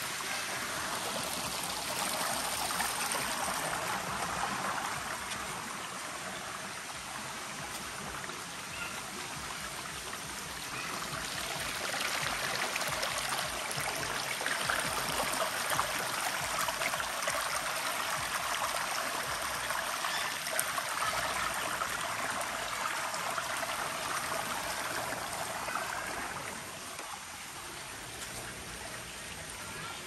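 Waterfall and stream water flowing and splashing in a steady hiss, a little louder from about twelve seconds in and softer near the end.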